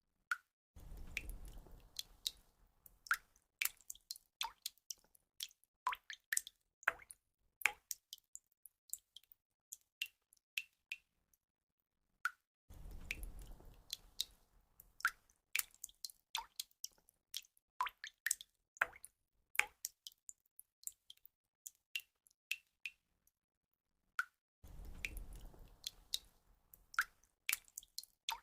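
Water drops falling and plinking at uneven intervals, each a short sharp drip at a different pitch. A low, rushing splash lasting a couple of seconds recurs about every twelve seconds, the sign of a looped drip recording.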